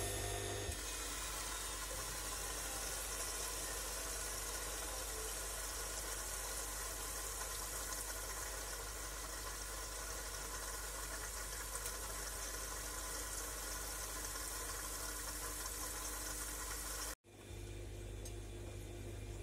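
Bosch Classixx 6 front-loading washing machine tumbling a wet pillow: the drum turns with water sloshing over the steady sound of the machine running. The sound cuts out for an instant about 17 seconds in and comes back with a deeper hum.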